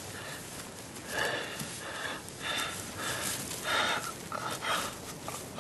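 A man breathing hard and fast, about seven ragged breaths in quick succession.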